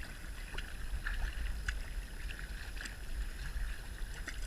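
Kayak paddling: small, irregular splashes and drips of water from the paddle over a steady water hiss, with low wind rumble on the microphone.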